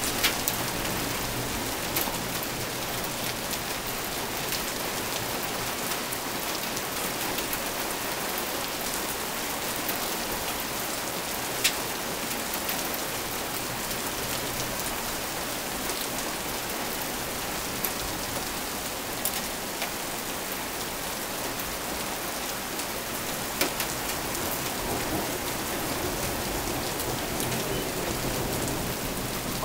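Heavy thunderstorm rain falling steadily on pavement and parked cars, with a few sharp ticks of single impacts now and then.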